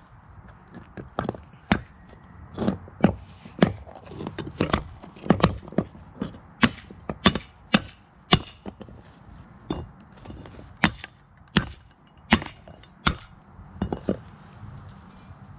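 A metal ingot mold turned upside down and knocked against concrete pavers to release freshly cast aluminium ingots, with the ingots clinking as they drop free. The sharp knocks come irregularly, about one or two a second, starting about a second in and stopping near the end.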